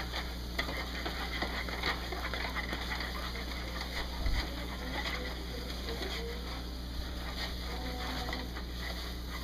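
Wooden spoon stirring and scraping a thick flour, butter and broth dough (choux paste) around a metal saucepan on the stove, with irregular small scrapes and faint sizzling as the dough is beginning to form a ball.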